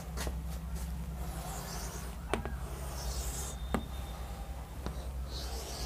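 Chalk drawing long straight lines on a chalkboard: soft scraping strokes with a few sharp taps as the chalk meets the board, over a low steady hum.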